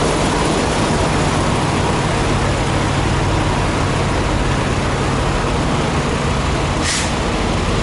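Parked semi trucks' diesel engines idling: a steady low drone under a constant hiss, with one short, sharp hiss about seven seconds in.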